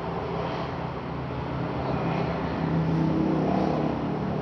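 A motor vehicle's engine running nearby: a steady low hum that grows louder through the middle and eases off near the end, like a vehicle passing.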